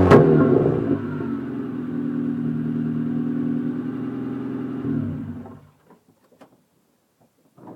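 Honda Civic EG3 engine running with its rear muffler removed, dropping back from revs to a steady idle. About five seconds in it is switched off and winds down to silence, leaving only a few faint clicks.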